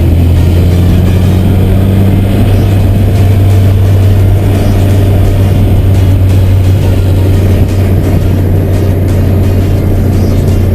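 VW Santana 2.0's AP four-cylinder engine running at steady revs while the car is driven, a loud, even drone. A second, higher tone drops away about two seconds in.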